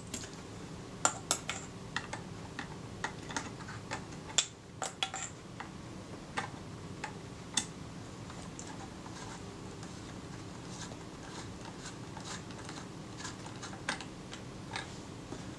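Small metal tool clicking and scraping against the parts of a Kodak Retina II camera as a retaining ring is done up loosely: irregular light clicks and taps, many in the first half and fewer later, over a low steady hum.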